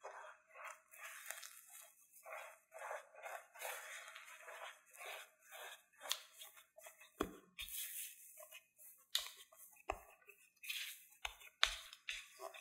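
Silicone spatula mixing mashed potato with corn starch in a glass bowl: soft, irregular scraping and squishing strokes, with a few low thuds in the second half.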